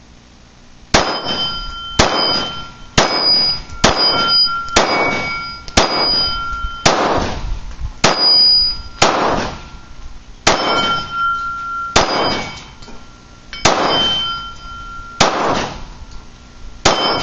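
Glock 19 Gen 4 9mm pistol firing a steady string of shots, roughly one a second, most of them followed by the brief ring of the steel plate target being hit.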